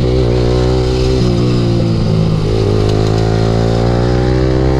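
Yamaha R15's 155 cc single-cylinder engine running through an aftermarket Akrapovic slip-on exhaust while the bike is under way, holding fairly steady revs. The pitch dips briefly a couple of times and then climbs slowly through the second half.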